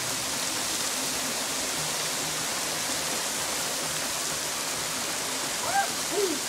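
Heavy rain mixed with hail coming down in a steady, dense hiss.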